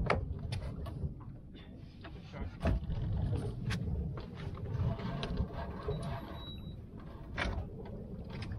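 Low, uneven rumble with scattered knocks and clicks from a fishing rod, line and gear being handled at a boat's stern.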